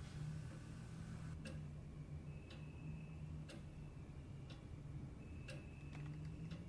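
Clock ticking about once a second, sharp single ticks over a low steady hum.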